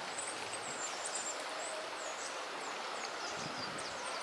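Coal tits calling: a scattering of short, very high, thin call notes, some sliding up or down in pitch, over a steady background hiss.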